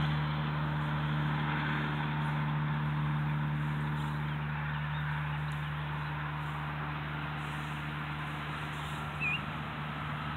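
Steady low hum of an engine running in the distance, slowly fading. A single short bird chirp comes near the end.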